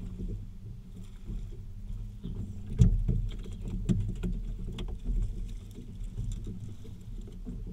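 Small waves lapping and slapping against the hull of a drifting boat over a steady low rumble, with a few sharp knocks, the loudest about three seconds in.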